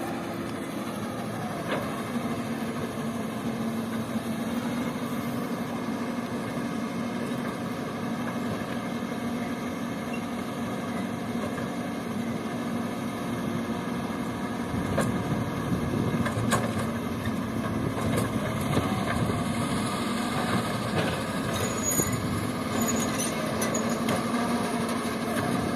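Diesel engine of a Komatsu PC200 excavator running steadily with a low hum, growing louder and rougher about halfway through as it works under load while loading sand.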